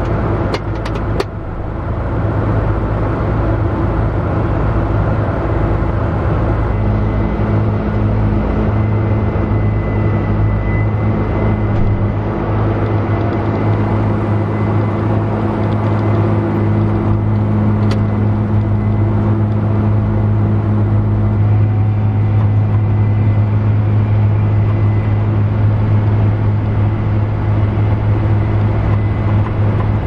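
Tractor engine running with a steady drone, heard from inside the cab, with a few light clicks near the start. A second steady tone joins the drone about seven seconds in.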